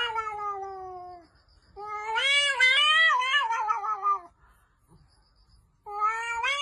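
A cat giving long, drawn-out meows: one trails off in the first second, a longer wavering one fills the middle, and another starts near the end.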